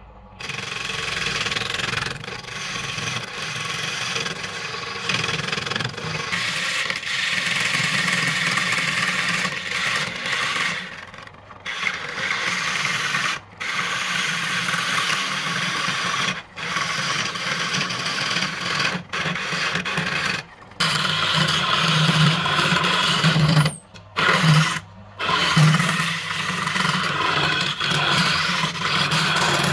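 Wood lathe running while a hand-held turning tool scrapes and hollows the inside of a spinning segmented wooden vessel: a steady rasping cut over the lathe's low motor hum. The cutting stops briefly several times.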